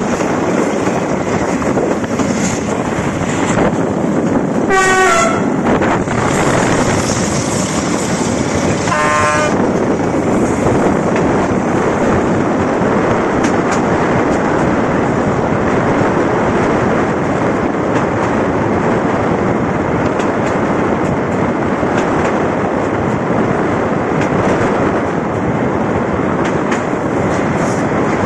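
Steady running noise of freight trains rolling on the track, heard from a locomotive's cab window, with wheel clatter. A train horn gives two short blasts, about five and nine seconds in.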